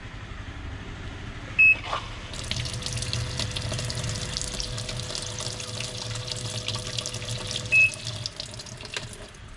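Onida top-load washing machine beeping once, then water starting to rush into the drum as the wash cycle begins filling; a second short beep comes near the end and the inflow stops shortly after.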